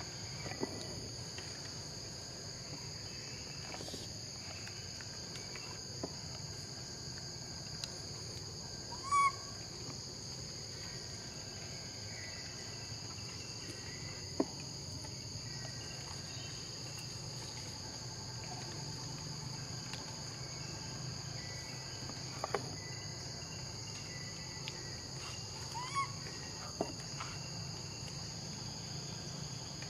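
Steady high-pitched insect drone in forest. Two short squeaks cut through it, the louder one about nine seconds in and another near the end, along with a few faint taps.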